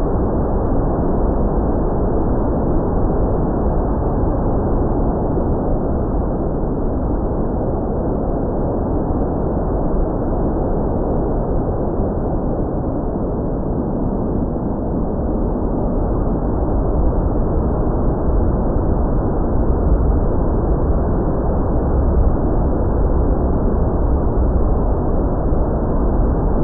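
Steady wind noise rushing over the microphone, dull and heavy in the low end, with no clear motor tone standing out.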